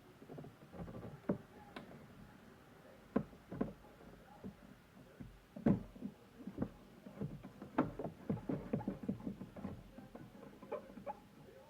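Irregular knocks, taps and rustles of packaging being handled close by, coming thicker and faster in the second half.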